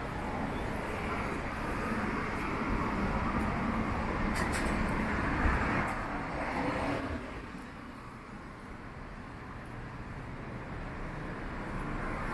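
City street traffic noise: a car passes, its running and tyre noise falling away about seven seconds in and leaving quieter street ambience.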